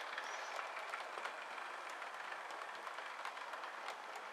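Model London Midland Class 350 electric multiple unit running along the layout's track: a steady whirring running noise with irregular light clicks of the wheels over the rail joints, easing slightly towards the end.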